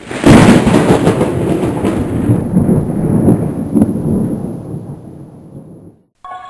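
Explosion sound effect: a sudden deep boom that rumbles on and slowly fades away over about five seconds.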